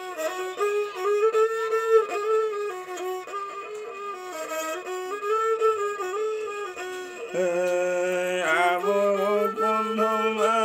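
Hand-made folk stick fiddle with a round resonator, bowed in a wavering, sliding folk-song melody. About seven seconds in, a lower sustained note joins beneath the melody.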